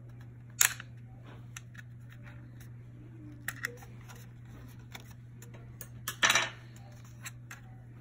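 Sharp plastic clicks and scrapes as a small screwdriver pries the locking pin out of the back of a First Alert FG250A smoke alarm. The loudest is a longer snap about six seconds in, over a steady low hum.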